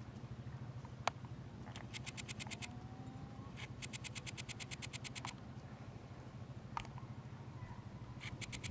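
Four-wheeler (ATV) engine idling with a steady low hum. Short, high, rapid trills of about a dozen clicks a second sound three times over it, with two single sharp clicks in between.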